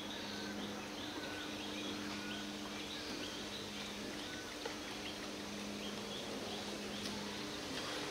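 Outdoor ambience: a short high chirping call repeats about twice a second over a steady low hum.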